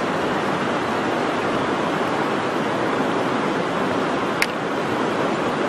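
Steady, even rushing noise, with one sharp click about four and a half seconds in as a grilled river shellfish shell is handled and pried open with a stick.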